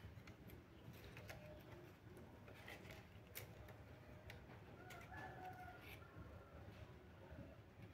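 Mostly quiet handling of an opened laptop: faint scattered clicks and taps as the keyboard is lifted out and plastic parts are touched. A chicken clucks faintly about five seconds in.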